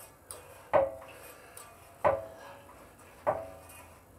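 Three sharp metallic clicks, each with a brief ringing tone, about a second and a quarter apart, from a hand tool being worked at the motorcycle's footpeg and center-stand pivots.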